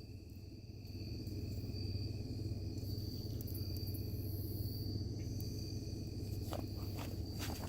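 Crickets trilling steadily at two high pitches, one of them dropping out for a few seconds in the middle, over a steady low hum, with a few light knocks near the end.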